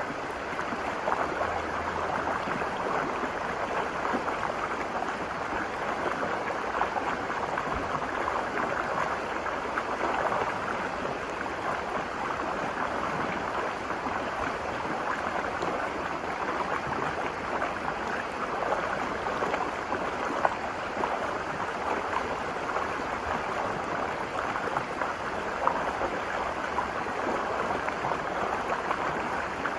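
The Virgin River flowing and rushing over rocks, a steady babble of running water with an occasional brief splash.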